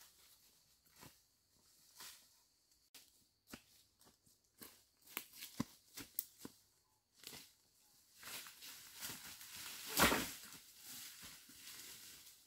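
Footsteps crunching through dry leaf litter and brushing through ferns, with scattered crackles and twig snaps. The rustling becomes denser in the second half, with its loudest burst about ten seconds in.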